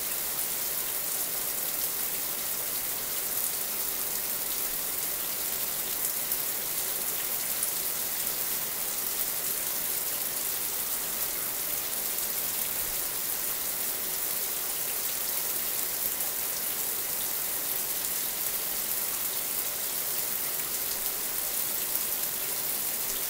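A bathroom shower running steadily, its water spray making an even hiss.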